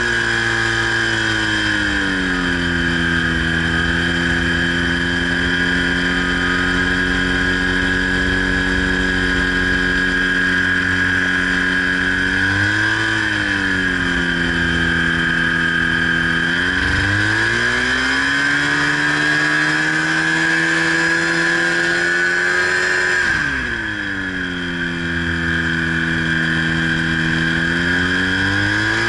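Ultralight trike's engine and propeller running in flight with wind rush and a steady high whine. The engine note drops about two seconds in as the throttle comes back after takeoff, swells briefly near the middle, rises again, then drops sharply and climbs back near the end.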